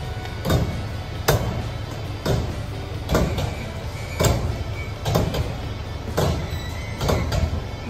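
Background rock music: a heavy drum hit about once a second over a steady low backing.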